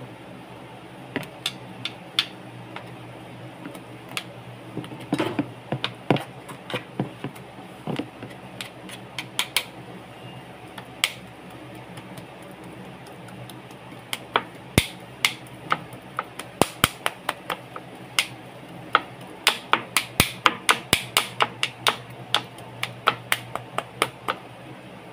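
Knife chopping raw chicken into mince on a plastic cutting board: sharp knocks of the blade on the board, scattered at first, then a quick run of about four chops a second near the end, over a steady low hum.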